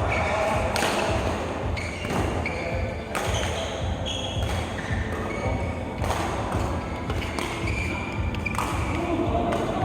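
Background music, with several sharp knocks spaced a second or more apart.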